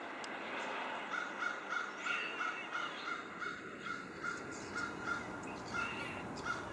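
Crow cawing in a long, rapid run of short calls, about three a second, starting about a second in: alarm calls of a crow mobbing a red-tailed hawk.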